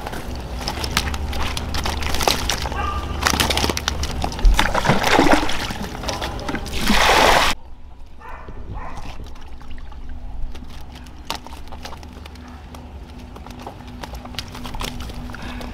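Water sloshing and splashing with scattered knocks, loudest in the first half; the sound drops off abruptly about seven and a half seconds in, leaving a quieter, steadier background.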